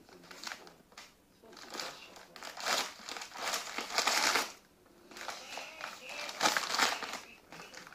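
Newspaper crinkling and rustling in irregular bursts as a border collie puppy mouths, shakes and tears at the sheets.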